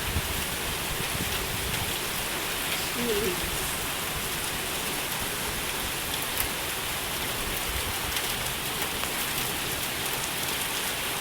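Rain mixed with small hailstones falling steadily, as an even hiss with occasional sharper ticks of stones striking.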